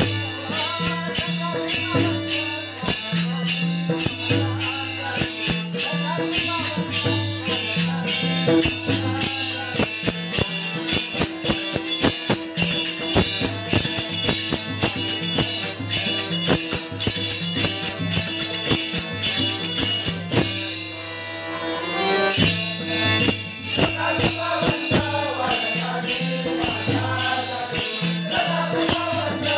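Warkari bhajan music: small hand cymbals struck in a fast, steady rhythm with drum beats over a steady held tone. The music thins out briefly about two-thirds of the way through, then singing comes back in near the end.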